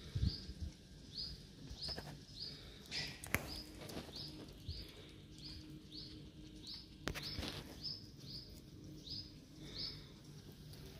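A bird repeats a short, high, rising chirp evenly, nearly twice a second, with a few sharp clicks about three and seven seconds in.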